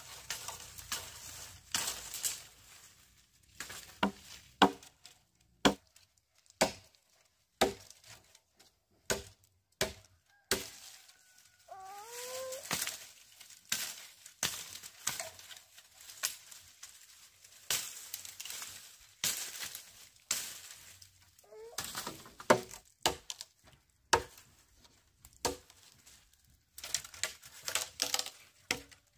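Irregular sharp chopping strikes of a blade cutting through sugarcane stalks, with crisp cracks between them. A short wavering bird call comes about twelve seconds in.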